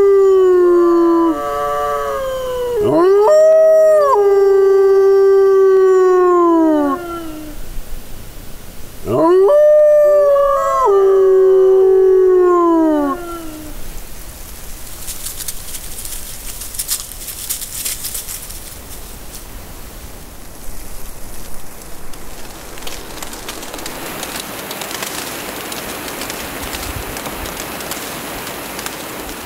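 Italian wolf howling: long drawn-out howls, one ending about a second in and two more after it, each settling on a steady pitch and sliding down at the end. From about 14 s on, only faint crackles and hiss.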